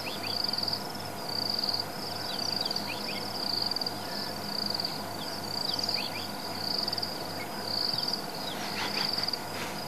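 An insect trilling in high-pitched pulses, each about half a second long and repeating roughly once a second, with faint short chirps in the background.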